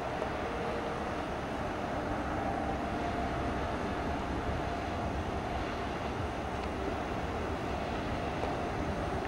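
Steady drone of a passing river cargo barge's engine, with faint humming tones over a low rumble.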